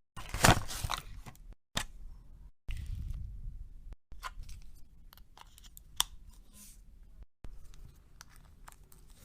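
Close-up handling of packaging and small items: crinkling and crunching with sharp taps and clicks, in short clips broken by abrupt cuts. The loudest crinkle comes about half a second in.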